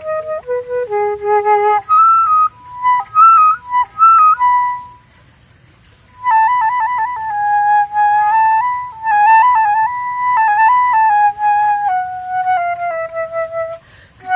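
Solo flute playing an improvised melody: short phrases of held notes with quick trills, a pause of about a second and a half in the middle, then a slow phrase stepping down in pitch near the end.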